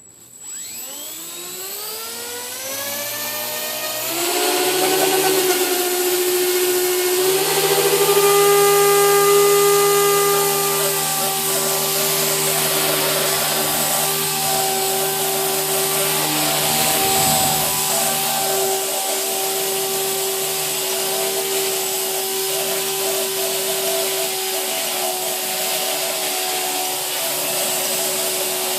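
The electric motor of a 130x power tool spins up over about four seconds, then runs at a steady speed with a whine of several tones. It is run so the sound can be judged as either normal or a bad bearing.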